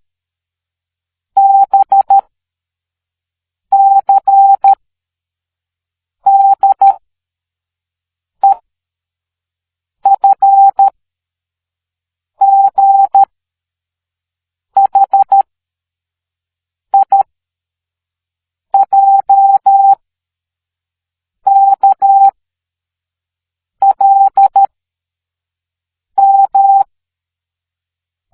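Morse code letters sent as a single steady mid-pitched beep keyed into short dits and long dahs, one letter group about every two and a half seconds with silence between. The letters run through the alphabet in order; one group about eight seconds in is a lone short dit, the letter E.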